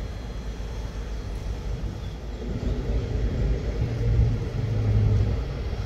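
Low engine rumble with a steady deep hum that swells in the middle and eases near the end.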